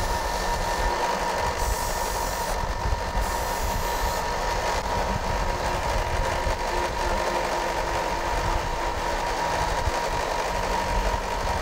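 Belt sander running steadily while the end of a 6 mm steel bolt is ground against the abrasive belt, a harsher hiss coming and going in three short bouts in the first five seconds. The threaded end is being dressed so a nut will run on smoothly.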